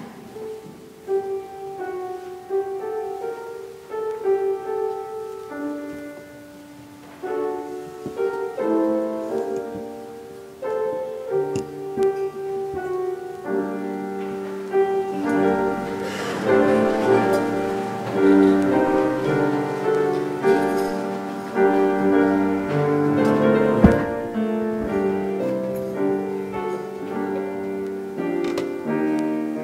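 Slow, quiet instrumental music on a keyboard. It begins with sparse held single notes and fills out into fuller sustained chords about halfway through. A single sharp knock sounds about four-fifths of the way in.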